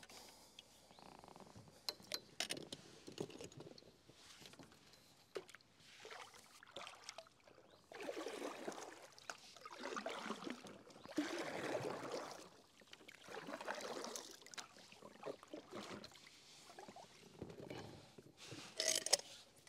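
Kayak being paddled: paddle strokes swishing through the water every second or two, with a few sharp knocks.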